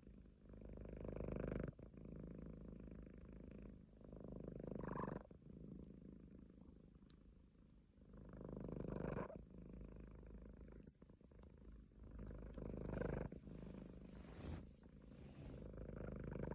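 Munchkin cat purring softly and steadily, swelling louder about every four seconds with its breathing, each swell building and then stopping abruptly.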